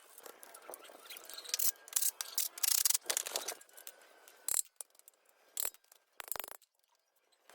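Irregular harsh scraping and rubbing on a hard surface: a run of loud strokes in the first half, then a few scattered clicks and scrapes, and a brief drop to near silence near the end.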